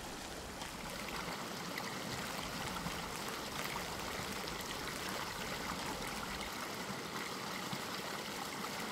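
Shallow river water running over stones: a steady, gentle stream sound.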